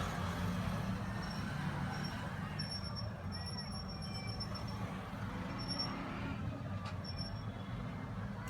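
Steady background hum of road traffic, with a few short high beeps scattered through the middle.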